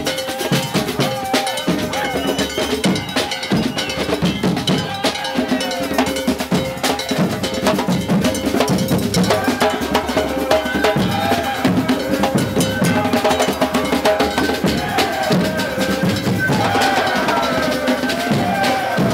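Festival music with fast, dense percussion, including clanking metallic beats, mixed with pitched voices or instruments.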